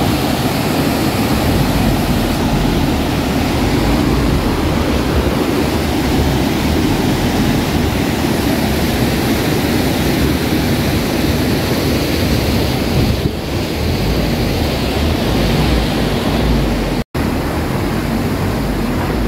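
Rushing water of a rocky mountain stream as a jeep drives through it, with the jeep's engine running under the steady roar of the water. The sound drops out for an instant near the end.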